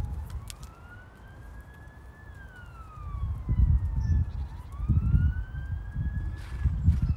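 Emergency vehicle siren wailing, its pitch rising and falling in slow sweeps, peaking twice. Low, irregular rumbling buffets run underneath and grow louder in the second half.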